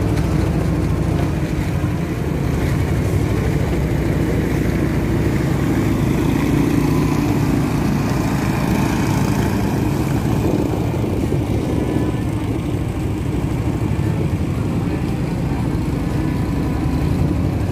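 Engine of a kelotok river-taxi boat running steadily under way, heard from on board, with water and wind noise over it.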